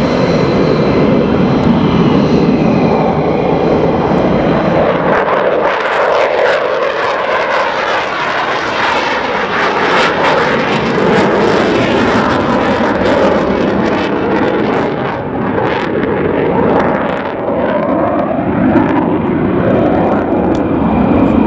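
F-15E Strike Eagle's twin Pratt & Whitney F100 jet engines. A steady high whine over the engine noise early on gives way, about five seconds in, to a loud crackling roar as the jet takes off and climbs out at full power.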